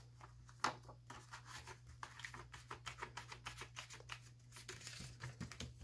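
Paper pages of a disc-bound planner being handled and turned: soft, irregular rustles and light ticks of paper.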